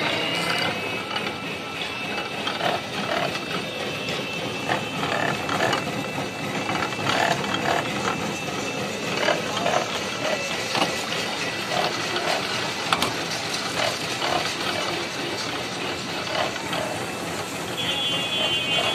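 Belt-driven sugarcane juice crusher running, its steel rollers and gears rattling and clicking steadily as they turn.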